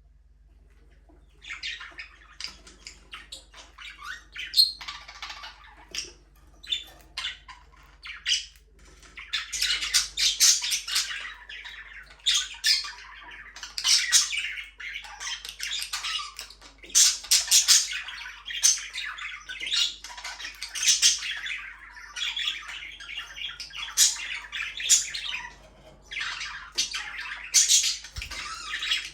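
A flock of budgerigars chattering, with a dense, uneven run of high-pitched chirps and sharp squawks that starts after a quiet second or so and grows busier about ten seconds in.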